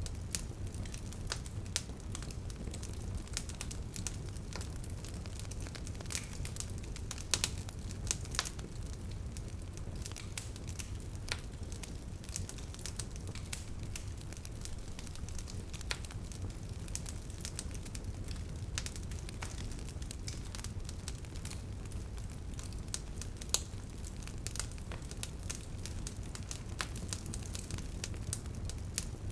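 Wood fire crackling: irregular sharp snaps and pops over a steady low rumble of burning, with a few louder snaps here and there.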